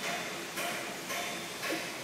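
Steady background hiss with faint, distant voices.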